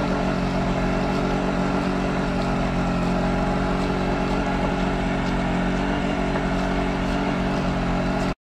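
A boat-mounted generator running steadily, a continuous even engine hum. It cuts off abruptly near the end.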